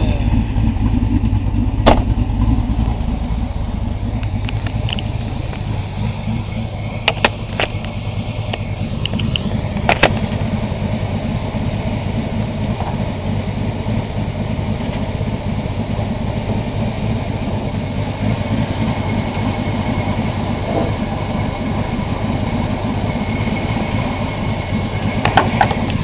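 Ford 5.0 L (302) V8, taken from a 1995 Mustang Cobra and fitted with a GT40 kit, idling steadily. A few sharp knocks come over it, about 2, 7, 10 and 25 seconds in.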